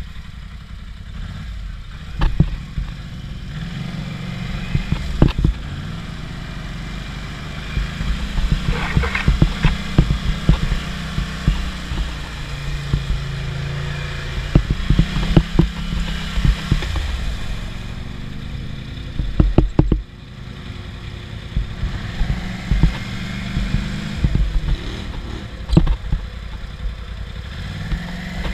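ATV engine running and revving up and down as the quad is ridden through mud and puddles, with frequent sharp knocks and clatter from the rough trail.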